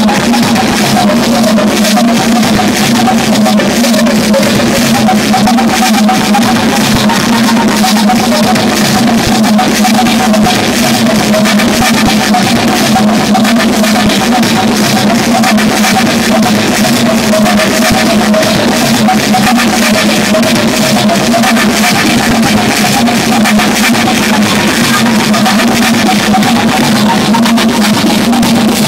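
Loud live electronic music from drum machines and synthesizers through a mixer. A noisy wall of sound over a fast, dense beat, with a steady low drone underneath that holds unchanged throughout.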